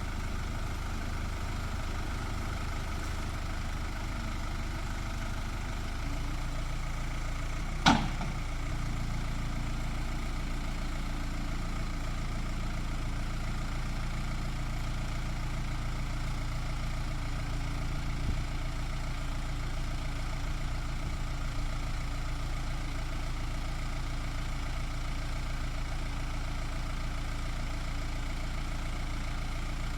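Case 580E backhoe loader's engine running steadily, its note rising slightly about six seconds in, with one sharp knock about two seconds later.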